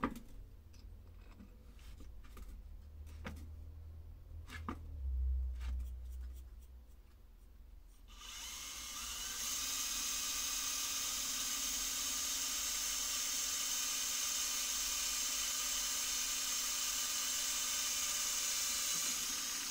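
A few light knocks and clicks of handling, then about eight seconds in a small electric drill starts and runs at a steady pitch for about eleven seconds, stopping near the end.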